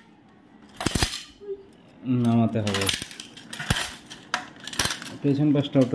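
Broken glass shards from a shattered wall-clock face clinking and rattling inside the frame as the clock is tilted and turned over, with a few sharp clicks and knocks.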